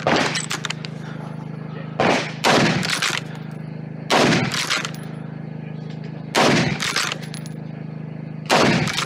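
Ruger American Ranch bolt-action rifle in .223 fired from prone: a string of about six loud shots, most about two seconds apart, each with a short ringing tail.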